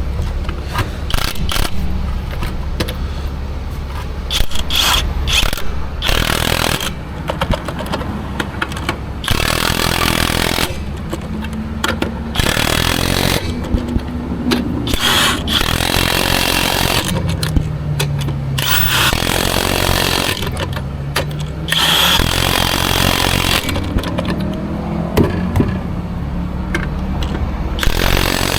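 Impact wrench running in repeated bursts of a few seconds, spinning lug nuts onto a wheel after a tire change, over a steady low hum.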